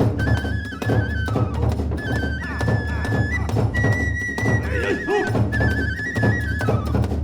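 Kagura hayashi music. A transverse flute plays a melody that steps between held high notes, over steady, rapid drum beats and the clash of small hand cymbals.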